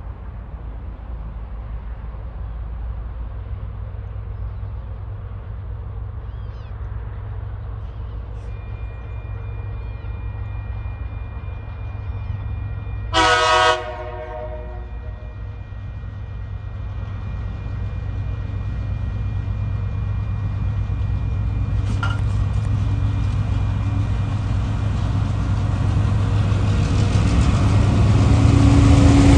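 TasRail TR-class diesel locomotive approaching, its low engine rumble growing steadily louder as it nears. About halfway through, its horn sounds in one short blast.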